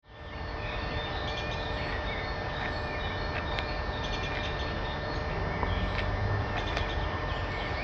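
Outdoor woodland ambience picked up by a camera microphone: a steady low rumble with a faint constant hum and scattered faint bird chirps.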